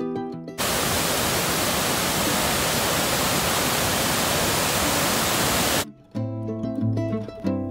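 Waterfall pouring over rock ledges: a loud, even roar of falling water that cuts in abruptly about half a second in and stops sharply near six seconds, with plucked-string music before and after it.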